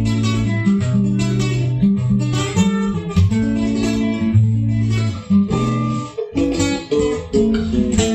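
Instrumental introduction of an Argentine folk gato played on guitar: plucked notes over sustained low bass notes, with a brief break about six seconds in.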